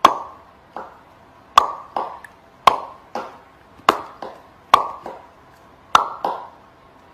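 Repeated sharp knocks, each with a short ringing tail, coming in loose pairs about once a second.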